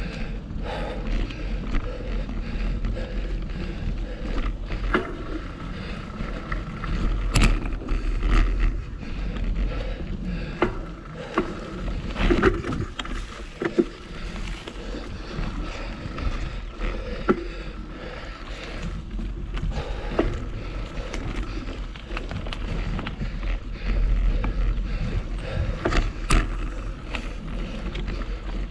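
Mountain bike rolling fast along a dirt singletrack: tyre noise and bike rattle with a scattering of sharp clacks and knocks over bumps, under a steady wind rush on the microphone.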